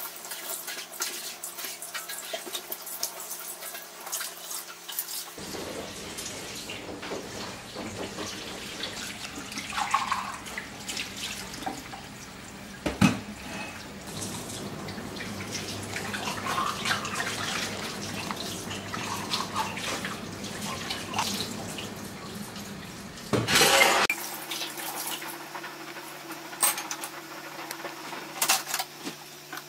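Kitchen tap running into a stainless steel sink as things are washed under it, with scattered clinks and knocks of dishes. There is a sharp knock partway through and a louder burst of noise about three-quarters of the way in.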